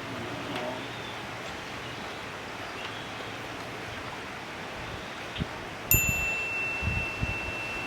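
A metallic chime struck once about six seconds in, ringing on with one clear high tone over a steady background hiss, with a few low thumps around the strike.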